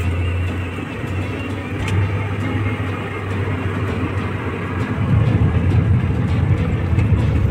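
Car engine and road noise heard from inside the cabin while driving, a steady low hum that grows louder and rougher about five seconds in.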